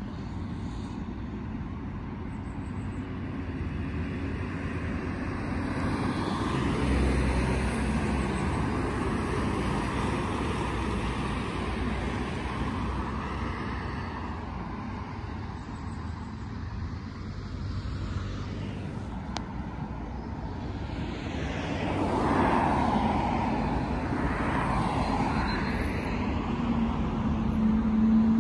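Road traffic on a dual carriageway: cars driving past in a steady hum, swelling louder as vehicles pass about a quarter of the way in and again about three quarters of the way in.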